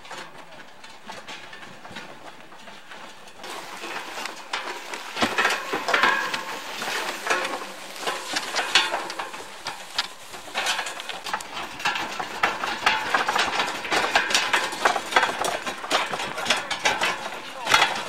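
Loaded wooden handcart rattling and clattering as it is pushed over a rocky dirt track, with footsteps on the gravel. From about three and a half seconds in, it is an irregular run of knocks, clicks and scrapes.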